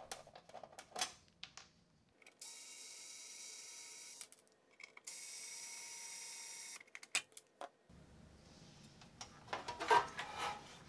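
Cordless electric screwdriver whirring in two runs of about two seconds each, driving screws on a metal computer chassis. Light clicks surround the runs, and a cluster of louder metal handling clatter comes near the end.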